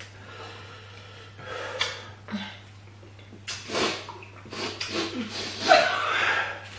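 Two people breathing hard and hissing air through open mouths in several short separate bursts, from the burn of an over-peppered stew.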